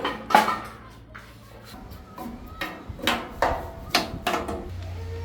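A run of sharp knocks and clanks of metal and tools being handled during a machine repair, about eight, irregularly spaced. A steady low hum comes in near the end.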